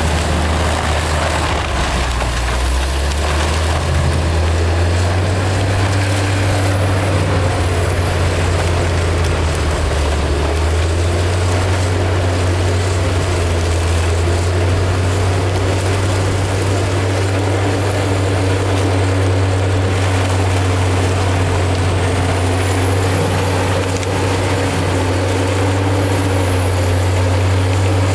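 Prinoth AHWI Raptor 800 640-horsepower tracked forestry mulcher working under load: a steady deep engine drone with the mulching head grinding through brush and wood, and a thin high whine that slowly rises and falls in pitch.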